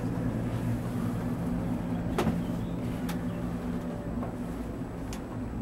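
Steady low hum of a cable-car gondola riding along its haul rope, heard from inside the cabin, with three short sharp clicks spread through it.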